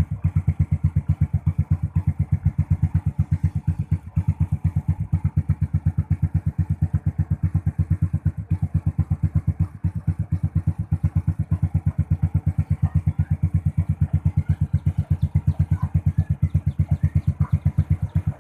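Suzuki Smash 115's single-cylinder four-stroke engine idling steadily through an HGM aftermarket exhaust pipe, an even, unchanging beat of exhaust pulses at about nine a second.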